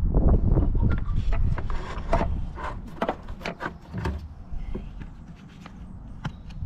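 Handling noise: an irregular string of knocks, clicks and rubbing over a low rumble, loudest in the first second or so.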